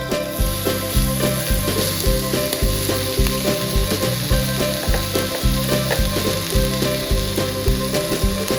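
Food sizzling as it fries in a pan, a steady hiss that starts just after the opening, over background music with a steady beat.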